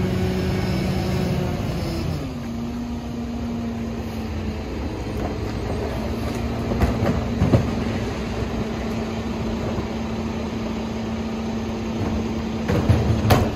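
Kenworth garbage truck's diesel engine and rear-loader hydraulics running with a steady hum, the pitch dropping to a lower steady note about two seconds in. A single knock comes about halfway, and a run of clattering near the end as trash goes into the Leach hopper.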